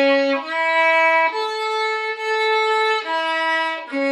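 Solo violin bowing an A major arpeggio slowly, one sustained note per bow stroke: rising through C sharp and E to a longer held top A, then stepping back down through E to C sharp.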